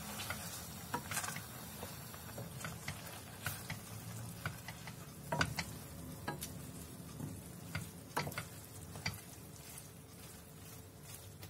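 A wooden spoon stirring spaghetti in a stainless steel pan of bubbling cream, with irregular knocks and scrapes of the spoon against the pan over a soft sizzle.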